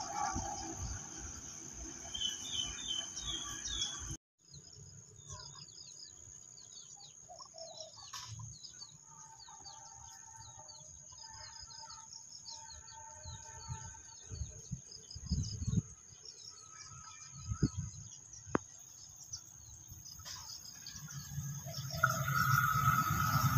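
Birds chirping and calling over a steady high-pitched insect drone. Near the end a low rumble grows with a steady tone as a train approaches in the distance.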